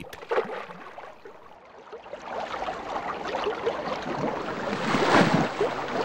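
Grizzly bear swimming, its paws sloshing and splashing the lake water, building to the loudest splash about five seconds in.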